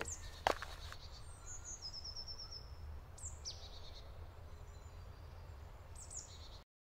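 Small songbirds singing faintly in a forest: a rapid trill of high notes and a few short falling calls. Two sharp knocks in the first half-second, and the sound cuts off shortly before the end.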